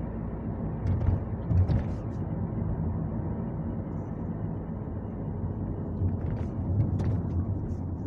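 Car engine running steadily at low revs in third gear, with road noise, heard from inside the cabin; a few short clicks or knocks come about a second in and again near the end.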